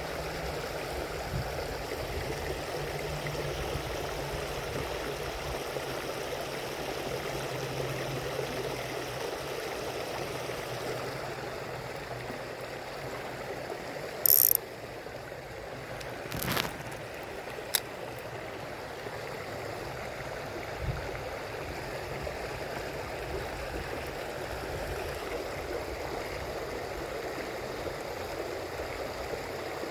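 Shallow stream running steadily. A few sharp clicks and one brief high-pitched burst come through about halfway.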